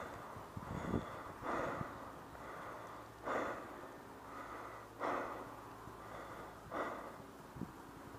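A paintball player breathing heavily close to the head-mounted camera's microphone: a loud breath about every second and a half to two seconds.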